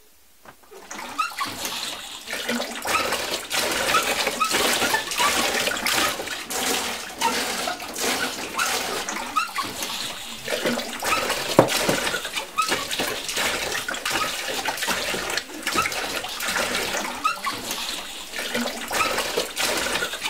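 Water running and splashing, as from a tap into a sink, starting about half a second in and going on unevenly.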